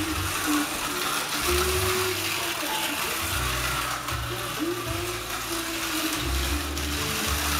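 Slot cars racing on a multi-lane track: small electric motors and gears whirring, the pitch gliding up several times as the cars accelerate out of corners.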